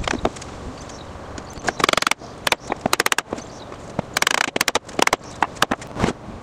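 Rubber mallet knocking on the wooden frame of an old red oak rocking chair to loosen its joints, in several quick runs of sharp knocks, with wooden parts clattering.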